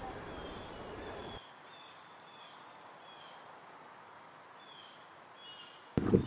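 A small bird calling with short high chirps, each falling slightly in pitch, repeated about every half second to second. Low wind noise on the microphone drops away about a second and a half in, and a loud rush of wind on the microphone cuts in suddenly near the end.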